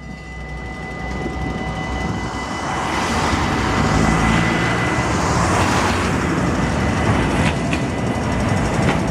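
Tram running on street track, its noise growing louder over the first few seconds as it approaches, then holding. A thin high whine fades out about three seconds in, and a few sharp clicks come near the end.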